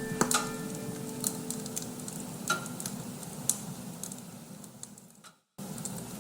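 Bonfire crackling with scattered sharp pops over a steady hiss, while a few held piano notes fade away. The sound drops out completely for a moment near the end.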